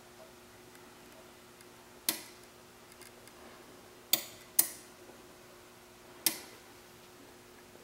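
Four sharp clicks over a faint steady hum. Two of the clicks come close together in the middle, and each one dies away quickly.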